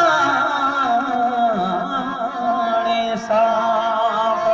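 Rajasthani song with a man singing long held, slightly wavering notes over instrumental accompaniment.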